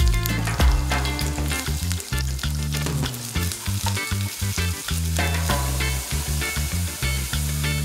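Sliced onions sizzling in hot oil in a non-stick wok, being fried toward golden brown, with a wooden spatula stirring and tapping against the pan. Background music with held low notes plays underneath.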